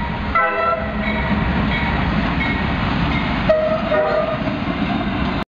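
Norfolk Southern diesel locomotives passing close by with a steady heavy rumble. Two short horn blasts sound, one near the start and one about three and a half seconds in. The sound cuts off abruptly at the end.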